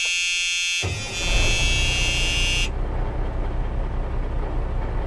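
Truck air horn blowing one steady blast of about two and a half seconds, then cutting off. About a second in, a low steady truck rumble comes in underneath and carries on.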